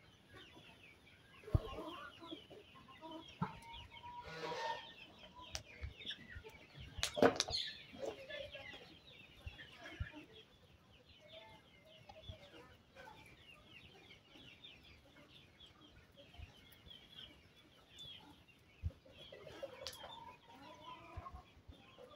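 Chickens clucking softly in a flock, with scattered short calls. A few sharp knocks, the loudest about seven seconds in.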